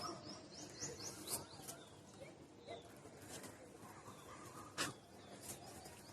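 Small birds chirping faintly, with a quick run of short high chirps about a second in, and a few soft clicks.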